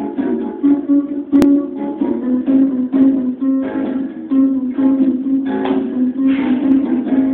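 Music on a plucked string instrument, with notes picked in a steady rhythm, and a single sharp click about a second and a half in.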